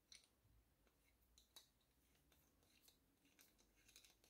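Near silence, broken by about three faint small clicks of an Allen key turning a steel screw through a 3D-printed idler pulley block.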